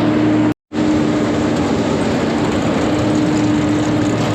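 Silage bagging machine running steadily under load as it fills a bag: a continuous mechanical drone with a held hum, the brake set at about 900 to 1,000 pounds. The sound cuts out for a split second about half a second in.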